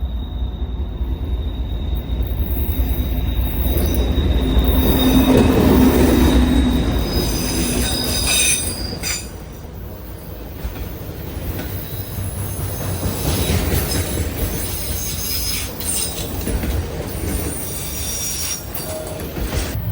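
A train rolling past: a steady low rumble of the cars on the rails, loudest about five or six seconds in, with high-pitched wheel squeals coming and going through the second half.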